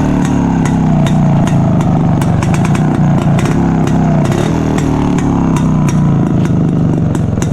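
Yezdi Roadking's single-cylinder two-stroke engine revved repeatedly, its crisp exhaust note rising and falling several times.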